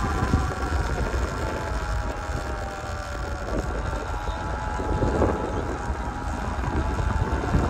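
Sur-Ron electric dirt bike riding at low speed, its electric motor giving a thin whine that sinks slightly in pitch over the first few seconds, over steady wind rumble on the microphone.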